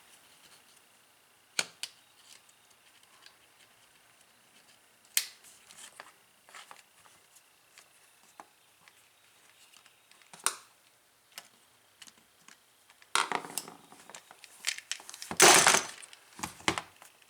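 Small drill parts being handled and fitted back into a corded drill's housing: a few scattered clicks and taps, then a louder run of rattling and scraping near the end.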